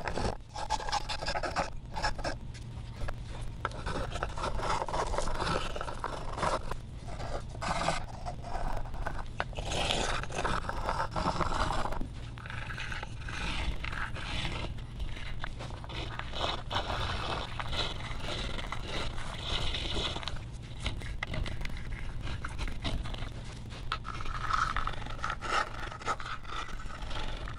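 Small Ibex finger plane shaving the hard maple carve top of a Les Paul-style guitar body: a long run of short, irregular scraping strokes of the blade across the wood, over a steady low hum.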